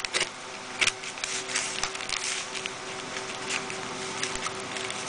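Scissors cutting through a plastic poly shipping mailer: irregular snips and crinkling of the plastic, with one sharp snip a little under a second in. A steady low hum runs underneath.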